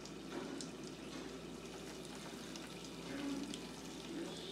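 Panko-breaded raw shrimp deep-frying in hot oil in a fryer basket: a steady sizzle with scattered crackles. The sizzling is the sign that the oil is hot enough.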